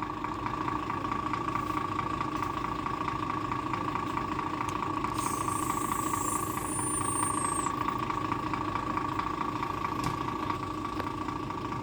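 Gravel truck's diesel engine idling steadily. A thin, high whistle sounds for about two and a half seconds around the middle.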